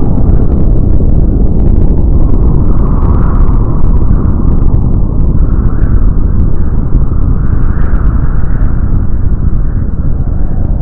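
Loud, continuous deep rumble of a massive explosion rolling on, a sound-effect blast laid over mushroom-cloud footage, with a faint crackle running through it.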